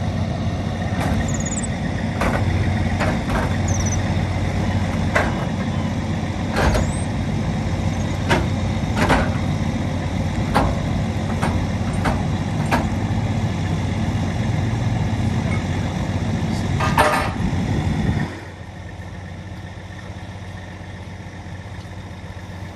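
Semi truck's diesel engine idling steadily, with scattered sharp clicks and knocks over it. The engine sound drops off sharply about 18 seconds in, leaving a quieter steady hum.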